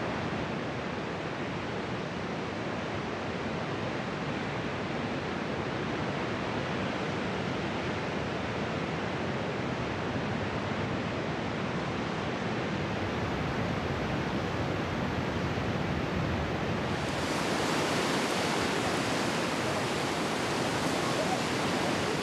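Steady rush of ocean surf, turning brighter and hissier about three-quarters of the way through.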